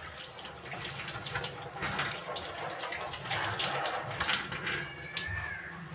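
Small gulgule (sweet flour fritters) frying in hot oil in a wok, a steady sizzle full of irregular crackles.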